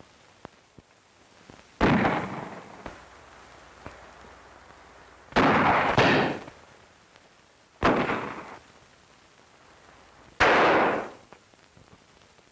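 Five gunshots, each followed by a short echoing tail. Two of them come about half a second apart in the middle, and the others are two to three seconds apart.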